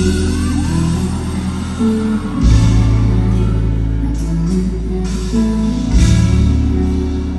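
Live band playing an instrumental passage led by guitar over sustained bass, with a heavy hit of bass and cymbals about two and a half seconds in and another about six seconds in.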